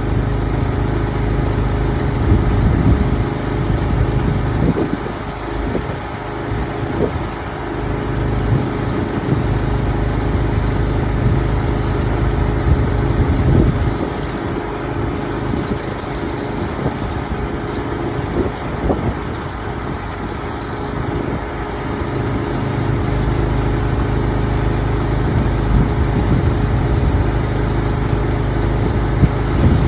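A motor-driven machine running steadily with a low, even hum and a rushing noise over it, the low hum easing a little in the middle and coming back later.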